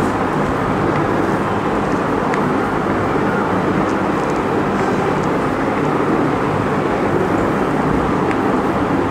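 Steady, fairly loud background noise with a low hum underneath, even throughout, like traffic or a fan.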